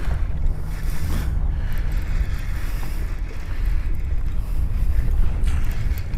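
Steady low wind rumble buffeting the microphone on an open boat, with water noise underneath.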